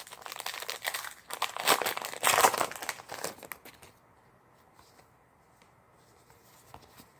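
Plastic wrapper of a trading card pack crinkling and tearing as it is opened, for about four seconds, loudest in the middle, then quiet apart from a small click near the end.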